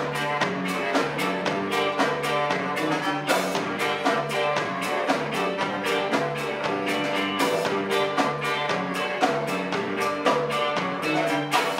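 Folk ensemble playing a lively instrumental tune on a steady beat, with bowed fiddle, wind instruments, bass and percussion.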